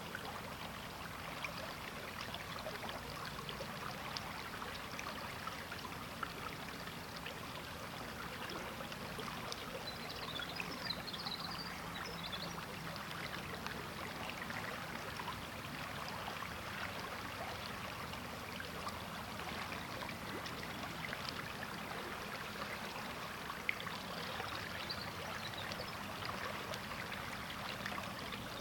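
River water flowing steadily, a constant babbling rush flecked with many small splashes and trickles.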